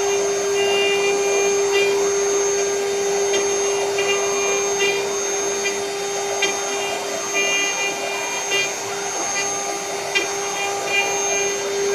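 Spindle motors of a four-spindle rotary CNC woodworking mill running with a steady high whine over a continuous rushing noise. Short higher-pitched tones and faint ticks come and go every second or two.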